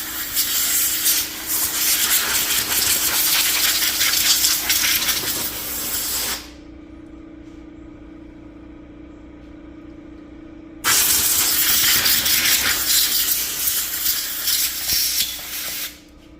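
Compressed air hissing from a blow gun, used to clear dirt and debris out of the engine valley: one long blast of about six seconds, a pause of about four seconds, then a second blast of about five seconds. A steady hum from the air compressor runs underneath as it builds pressure.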